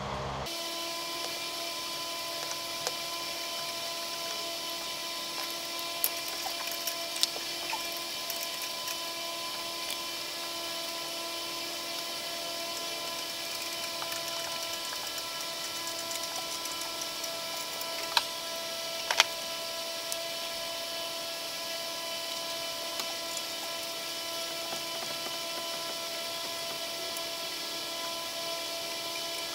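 A steady mechanical hum with several fixed high tones and a hiss behind it. Now and then come sharp metallic clicks and clinks of a hand wrench on the exhaust manifold nuts being tightened, a pair about six seconds in and a louder pair near eighteen to nineteen seconds.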